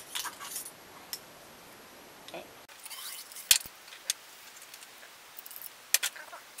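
Scattered sharp metallic clicks and knocks with a little rubbing: a silencer tube, cleaning rod and small metal parts being handled on a wooden workbench. The loudest click comes about three and a half seconds in.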